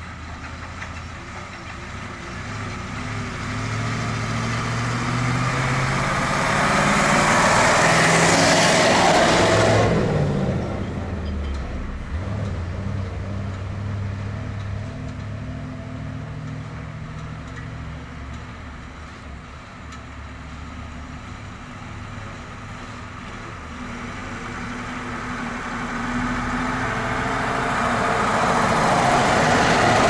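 Motor vehicle engine running. About ten seconds in, a vehicle swells up, drops in pitch and falls away as it passes by, and another swells up toward the end.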